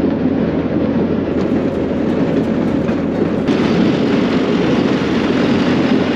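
Vintage rail speeder rolling along the track: a steady rumble of the cart and its steel wheels on the rails, with faint clicks.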